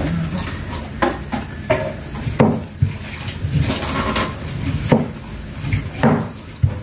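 Kitchen knife cutting and paring a round green fruit by hand: a run of irregular knocks and scrapes as the blade chops through the rind.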